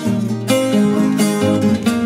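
Instrumental break of a Colombian bambuco, with plucked guitar and tiple playing a melody over chords.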